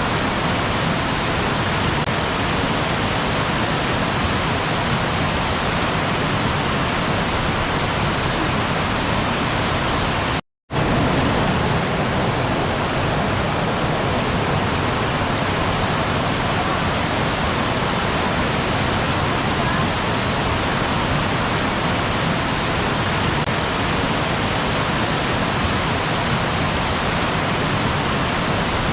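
Waterfall: a steady, even rush of falling water, cut by a split-second gap of silence about ten and a half seconds in.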